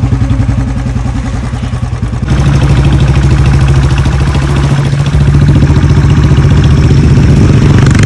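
Royal Enfield Bullet's single-cylinder engine running under way, with an even, pulsing exhaust beat. It gets louder about two seconds in and again a little past halfway.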